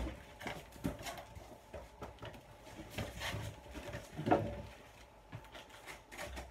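Unpacking a desk chair from its cardboard box: cardboard and packing rustling and scraping as hands rummage inside, with a few short knocks, the loudest about four seconds in.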